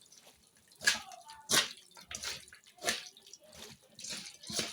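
Hands kneading raw chicken pieces with spice marinade in a bowl: a string of short, wet squelches, about one or two a second.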